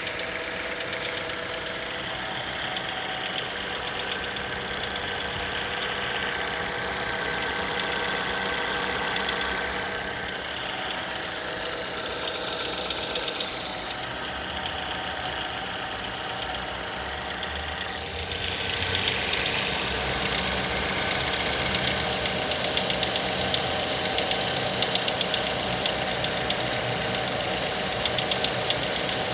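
Mazda 6 GH 2-litre engine idling cold, with a fast, even ticking knock over the running sound; it grows louder about two-thirds of the way through. The knock appears only after long standing, while the engine is cold at 800–1000 rpm, and it goes away once the coolant temperature starts to rise.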